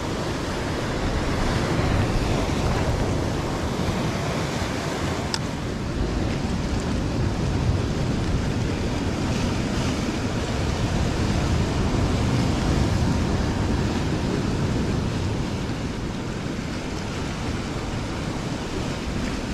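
Rough sea surf breaking and washing over rocks in a steady roar of noise, with wind buffeting the microphone. A single short click about five seconds in.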